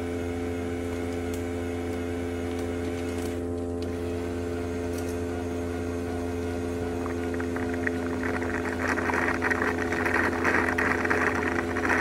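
XWOW R2 robot vacuum's base station washing the mop pads: a steady motor hum, joined about eight seconds in by a louder, rough scrubbing noise.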